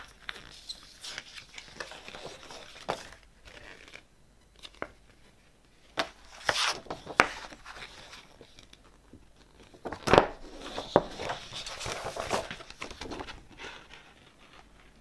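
Hands handling the paper, card and plastic of a vinyl LP package: sleeves and inserts rustling and sliding in three spells, with sharp taps and clicks, the loudest about ten seconds in.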